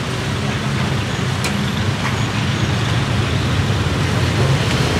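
Steady street traffic noise with a low engine hum.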